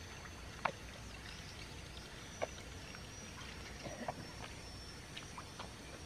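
Rubber boots wading through shallow water in a flooded rice paddy, with a few short, faint splashes, over a quiet background with a thin steady high tone.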